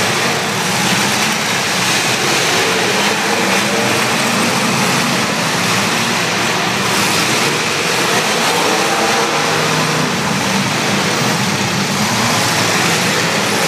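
Several demolition derby cars' engines running and revving at once, their pitches wandering up and down over a dense, steady din.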